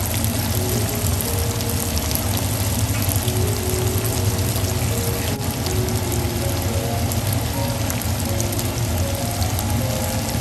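Tofu pieces frying in hot oil in a pan: a steady, dense crackling sizzle.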